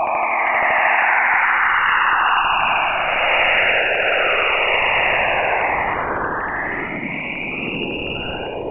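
Spacecraft-recorded space radio or plasma waves converted to sound: a loud hiss in bands that swoop up and down in pitch, crossing over one another.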